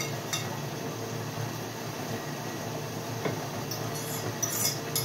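Steady hum and swish of a running dishwasher, with a few clicks of a fork against a plate, more of them near the end.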